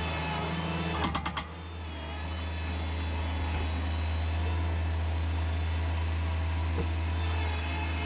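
Engine running steadily with a deep, even hum, with a few clicks about a second in.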